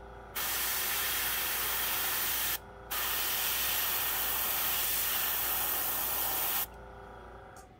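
Iwata Eclipse gravity-feed airbrush spraying paint with a steady hiss, in two long bursts separated by a brief pause just under three seconds in. The spray cuts off about a second before the end.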